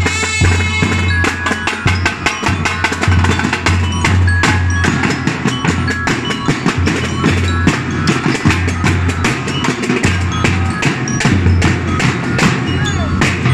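Drum and lyre band playing: snare drums beating dense rapid strokes over a bass drum, with bell lyres (marching glockenspiels) ringing short metallic notes on top.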